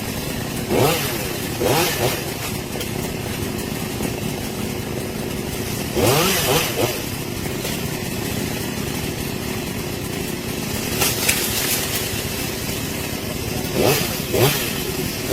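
Two-stroke chainsaw idling, with several short throttle blips whose pitch rises quickly and falls back, spread through the stretch.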